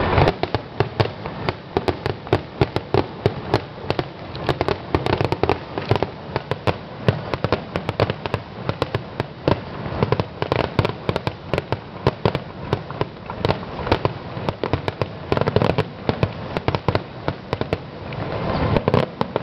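Fireworks going off: a rapid, irregular string of sharp bangs and pops, several a second, thickening into a denser crackle near the end.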